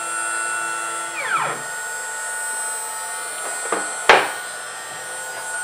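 Shark HD4 CNC router's Z-axis stepper motor driving its lead screw, a whine that falls in pitch and stops about a second and a half in. Then two sharp knocks, the second and louder about four seconds in, over a faint steady electrical hum.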